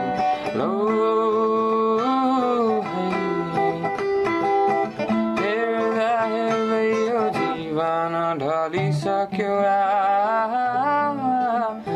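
Acoustic guitar played by hand, with a voice singing a long, held melody with vibrato over the chords.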